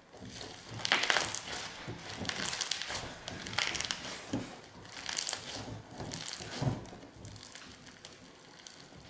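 Clear glue slime packed with fake snow (small plastic flakes) crunching and crackling as hands stretch, squeeze and knead it, in a string of crisp bursts that thin out over the last couple of seconds.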